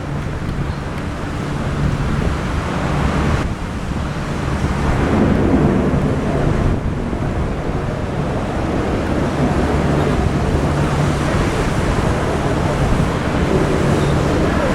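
Steady roar of aircraft engines, with a low hum running through it and wind noise on the microphone.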